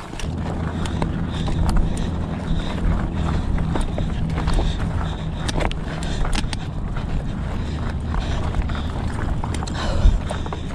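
Hardtail mountain bike being ridden along dirt single track, heard from a chest-mounted camera: a steady low rumble of tyres and bike with scattered clicks and rattles.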